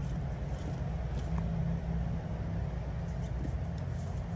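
A steady low hum with a few faint taps over it.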